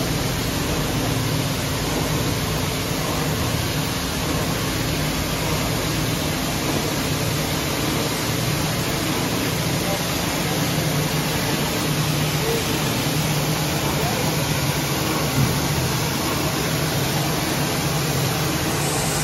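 High-pressure water jets of an Istobal M'Start rollover car wash spraying a car: a steady hiss of spray over a low, steady pump hum.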